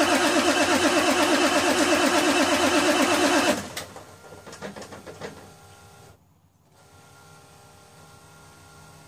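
Ford F-350's starter cranking the cold engine in a steady, rhythmic churn for about three and a half seconds without it catching, then stopping abruptly: a cold no-start. A few light clicks and a faint steady hum follow.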